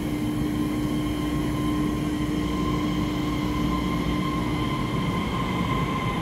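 Taiwan Railway EMU3000 electric multiple unit pulling out of the station, running past with a steady electric whine over the low rumble of its wheels.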